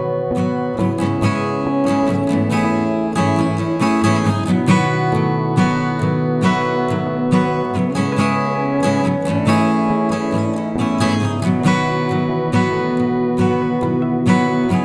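Background music: a strummed acoustic guitar track with a steady rhythm.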